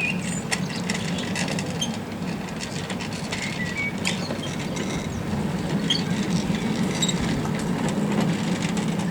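A 7¼-inch gauge miniature railway train running along its track with a steady low running noise and light clicks. Birds chirp briefly a few times over it.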